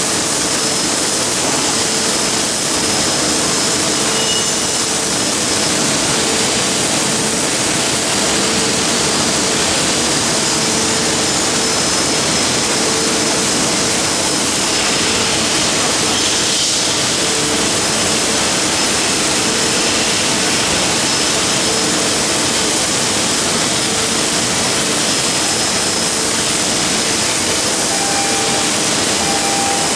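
MIG welding arc from an automatic CNC gantry welder, a steady loud hiss with faint humming tones, running without a break.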